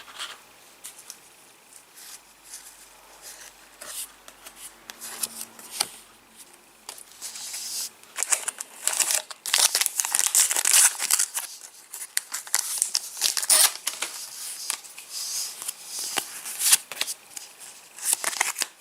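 Foil trading-card packets crinkling and being torn open, with cards shuffled between the hands. The rustling is sparse at first and turns busier about eight seconds in.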